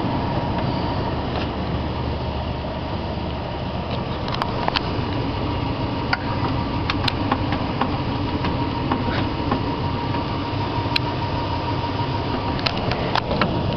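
2006 Toyota Tundra's 4.7-litre V8 idling steadily and smoothly, with scattered sharp clicks over the top.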